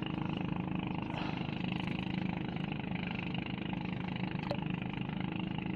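An engine running steadily, a low drone that holds an even pitch.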